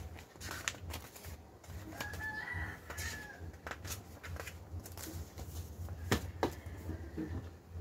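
A stack of printer paper being leafed through and rustled, with sharp taps as the sheets are handled, two firmer knocks a little after six seconds in. A high, drawn-out call sounds in the background about two seconds in.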